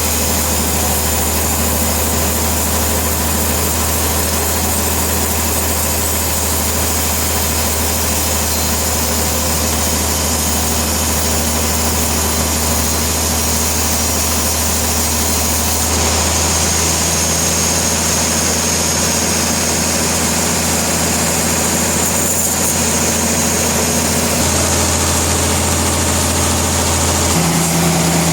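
Sawmill machinery running steadily: a loud, dense mechanical drone over a low hum, whose pitch shifts abruptly several times in the second half.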